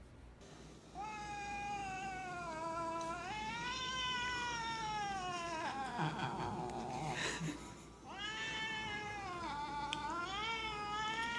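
Siberian Husky howling: two long, high howls that rise and fall slowly in pitch, the first lasting about five seconds and the second starting about eight seconds in.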